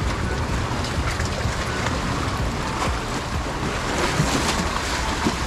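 Sea waves washing against concrete breakwater blocks, with wind rumbling on the microphone.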